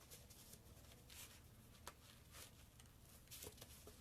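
Faint rustling and sliding of sheets of 6x6 double-sided patterned paper being spread out by hand, with one small tick about two seconds in.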